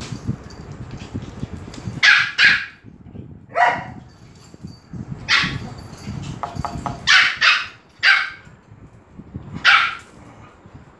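Small dogs barking excitedly in short, sharp, high-pitched yaps, about eight barks, some in quick pairs.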